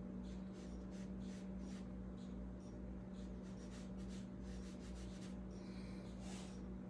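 A paintbrush stroking and dabbing on watercolor paper, softening an edge of paint: a run of short, soft scratchy strokes with a longer one about six seconds in, over a steady low hum.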